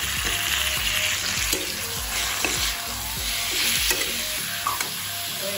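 Raw chicken pieces sizzling in oil and fried spice paste in a metal kadai, stirred with a steel spoon that scrapes and knocks against the pan.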